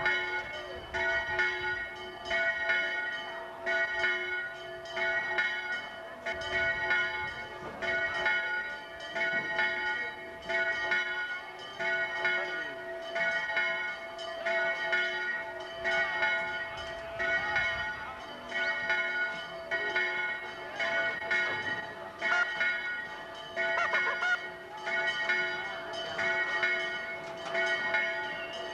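A bell rung steadily, struck a little faster than once a second, its tone ringing on between strikes.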